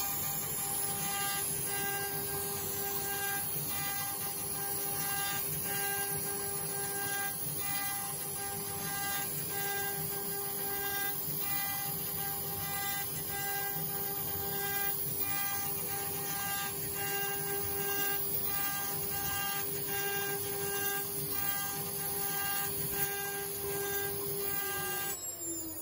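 CNC router spindle running at high speed, its small engraving bit carving a relief into a hardwood block: a steady whine over the cutting noise, the tone breaking in and out as the bit moves through the wood. In the last second the pitch falls away and the sound drops.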